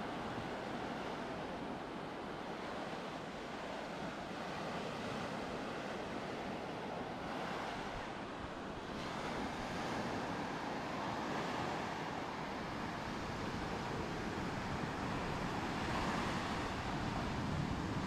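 Ocean surf breaking and washing on a beach: a steady rush of water that swells several times as waves come in.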